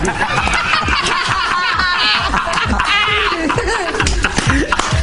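A person snickering and chuckling, with music underneath.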